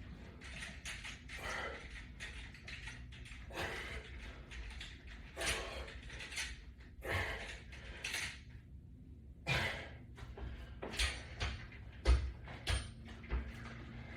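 Resistance bands and their metal latch bar attachment rubbing, creaking and clicking with each pull repetition, one short noise every second or two, with a few low knocks near the end.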